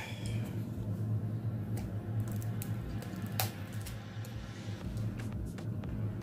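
Scattered small clicks and mouth sounds as a man bites and sucks on a candy cane, with the loudest click about three and a half seconds in, over a steady low hum.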